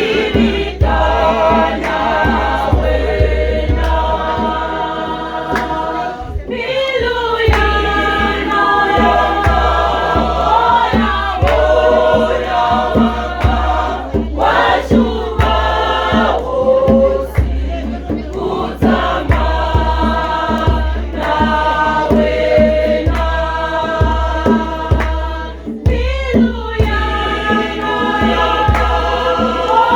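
Choir singing a gospel song with sustained phrases and brief pauses between lines, over a steady low beat.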